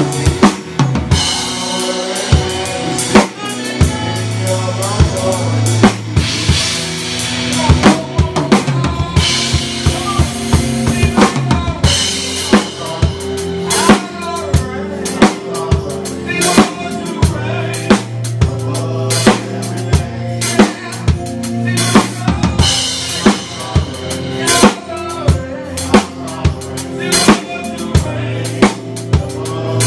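Drum kit playing a steady groove in a live gospel band: regular kick and snare hits with stretches of cymbal wash, over held low bass notes.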